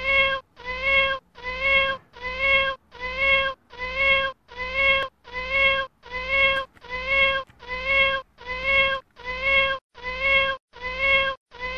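A domestic cat's meow repeated over and over, about fifteen times at an even pace of roughly one every 0.8 seconds. Each call is identical in pitch and shape, a single meow recording played in a loop.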